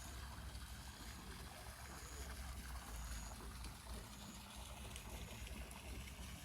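Faint outdoor ambience: a steady low wind rumble on the microphone with a light hiss, and a few faint short high chirps.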